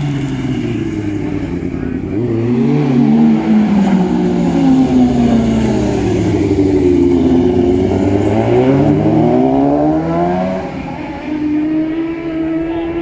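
Classic superbike racing motorcycles' four-stroke engines passing one after another through a slow corner. Their pitch falls as they slow and rises as they accelerate away, with several bikes overlapping.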